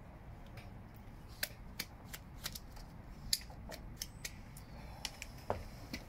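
Wooden spatula scraping and tapping on a hoof's acrylic sole as it sets, shaping concavity into it. Short, light clicks and scrapes come at an irregular pace, starting about a second in.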